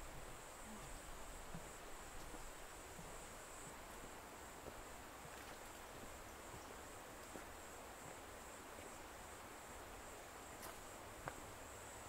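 Faint, steady high-pitched insect trill over a soft even hiss, with a couple of light clicks near the end.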